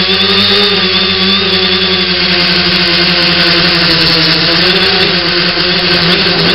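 Tricopter's three brushless motors and propellers running in flight, a steady, loud mechanical whir heard from the onboard camera. Its pitch wavers slightly as the throttle shifts.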